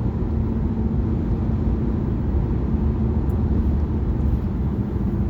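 Steady tire and road noise inside a 2012 Mazda 6 cabin at about 70 mph on new Cooper Road Control Touring all-season tires: a low rumble with a steady hum. The hum comes from the driver's side front, which the driver suspects is a wheel bearing going bad.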